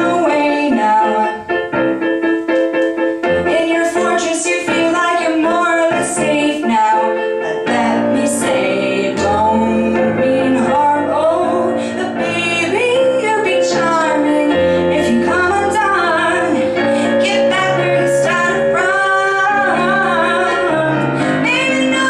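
A woman singing a pop song live with piano accompaniment, choppy chords for the first several seconds, then held low notes under a sustained melody.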